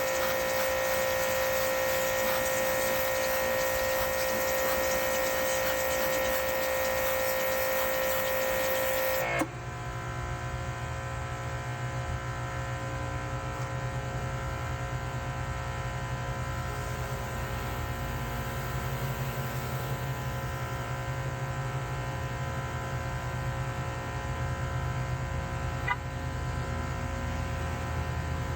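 Power washer running with a steady, even-toned whine; about nine seconds in the sound changes abruptly to a lower, steady hum.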